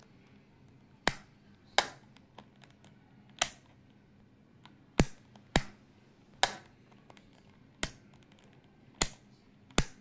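About nine sharp, separate clicks, roughly one a second at uneven spacing, each dying away quickly.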